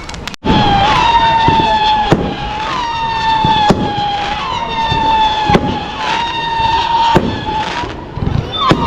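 Fireworks banging at irregular intervals, roughly once or twice a second, over a steady high whistling tone that holds one pitch and swoops up briefly each time it restarts.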